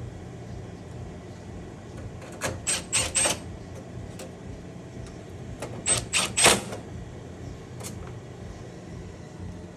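Two quick runs of about four sharp, light metallic clicks, about 2.5 and 6 seconds in, as gas cooktop parts are handled and fitted back during reassembly, over a steady low hum.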